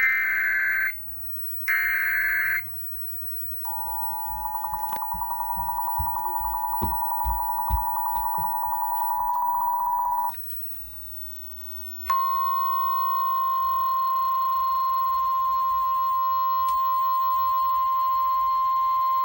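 Two short bursts of screeching SAME digital data tones, then the two-tone Emergency Alert System attention signal, pulsing and growing louder, for about seven seconds. After a short gap comes the steady single-tone 1050 Hz NOAA Weather Radio warning alarm, which runs on to the end.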